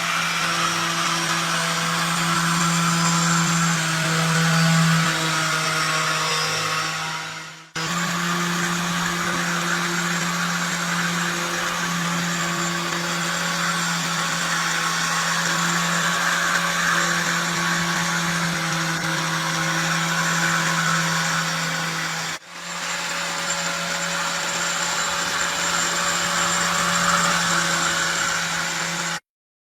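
Small electric power tool running steadily, a constant motor hum with a broad hiss over it. It comes in three edited stretches, broken by brief cuts about 8 and 22 seconds in.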